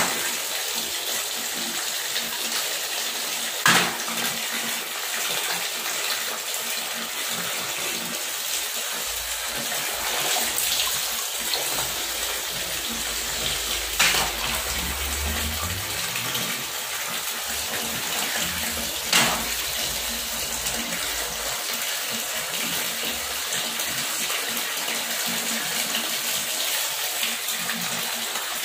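Water running steadily from a wall tap outlet and splashing onto a tiled floor and plastic tray. A few sharp knocks break in, about 4, 14 and 19 seconds in.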